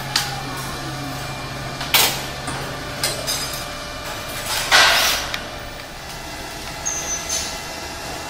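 A train of wheeled transport carts rolling past on a concrete floor, rattling, with several sharp knocks and clunks. The loudest knock comes about five seconds in.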